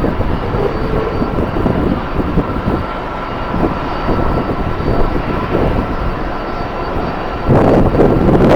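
Jet airliner engines running, a loud rush with a thin steady whine. A louder rush comes in about a second before the end.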